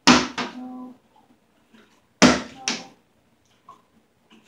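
Plastic water bottle flipped onto a cloth-covered table twice. Each landing is two quick knocks less than half a second apart as the bottle hits the table and tips over.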